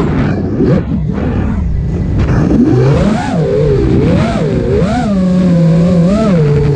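The brushless motors and five-inch propellers of an FPV racing quadcopter (Emax RS2205 2300kv motors), heard from the onboard camera. The throttle is cut at the start and air rushes for a couple of seconds. Then the motor whine rises and falls in pitch several times as the throttle is pumped, settling to a steadier lower hum near the end.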